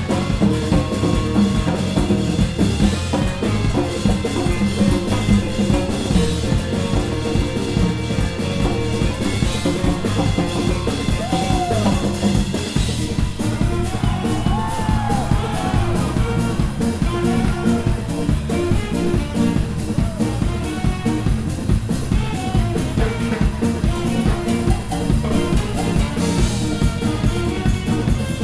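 Live funk band playing a steady groove: drum kit and congas driving the beat, with trumpets and trombone and a guitar over it.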